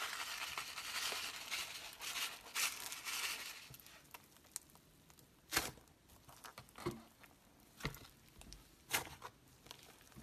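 Plastic bag crinkling as black sprinkles are shaken out of it onto slime, with a dense crackle for the first few seconds. Then fingers pressing and squeezing the sprinkle-covered slime make a few sharp clicks and pops about a second apart.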